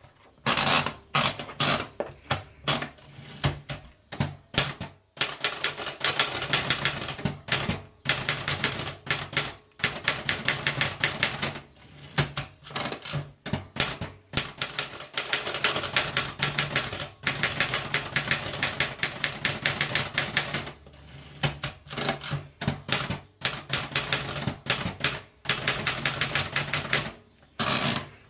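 Erika 50/60 manual portable typewriter being typed on: fast runs of keystrokes with short pauses between them.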